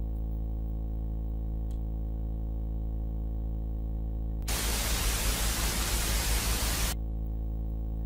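Steady low electrical hum, with a burst of harsh static about four and a half seconds in that lasts some two and a half seconds and cuts off suddenly.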